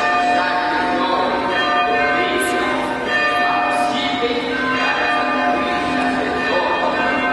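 Church bells ringing, many overlapping tones sounding together, with voices murmuring underneath.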